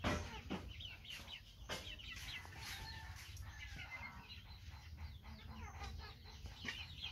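Chickens clucking and peeping, a steady scatter of many short, high, falling calls.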